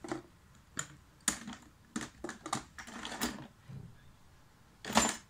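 A Maine Coon cat pawing through cosmetics: small items click, knock and rattle together in an irregular string of sharp taps. The loudest knock comes about five seconds in.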